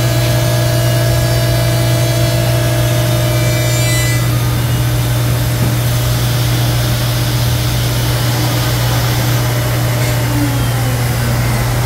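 CNC router cutting a wooden sheet, its spindle running and dust extraction drawing through a brush dust shoe. It gives a steady loud machine hum with continuous cutting noise.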